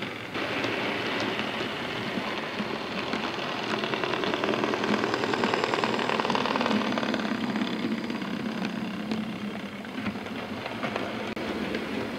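OO gauge model Class 35 Hymek diesel locomotive running with a freight train on model track: steady whirr of the electric motor and wheels with many small clicks, louder around the middle as the train passes close.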